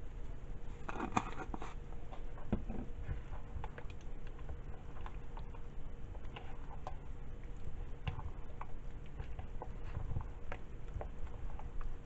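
Seasoning shaken from a shaker onto a thick creamy filling about a second in, then a spatula stirring and folding the wet mixture in a bowl, with small irregular clicks and soft scrapes against the bowl.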